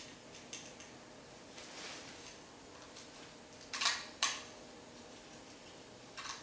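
Faint handling sounds of a belt being fed into a drive unit: scattered small clicks and short scrapes, with two louder scrapes about four seconds in and another near the end.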